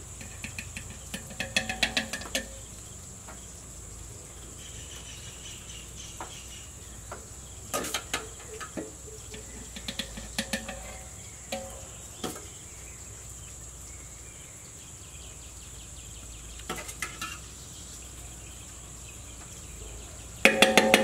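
Steel spoon clinking and scraping against a steel bowl and cooking pot in short, scattered bursts as masala is scooped and spread over a rice layer, loudest near the end. Under it, a steady high-pitched insect drone.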